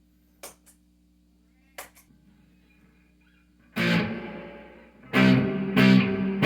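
Electric guitar through an amplifier: a steady amp hum with two faint string clicks, then a chord struck about four seconds in that rings and dies away. From about five seconds in, chords are strummed in a steady rhythm, roughly one and a half a second.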